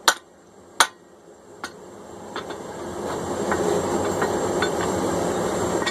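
Hammer blows driving a steel drift through a hot forged hammer eye: two loud ringing strikes and a lighter one. Then a steady rushing hiss builds up over a couple of seconds and holds.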